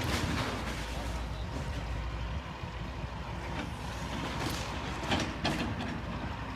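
Heavy construction machinery such as an excavator working: a steady low engine rumble with a few short, louder noisy bursts, one right at the start and others about four to five seconds in.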